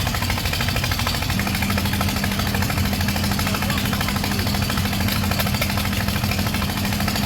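Excavator's diesel engine running steadily with a rapid rattle; a steady low drone joins about a second and a half in.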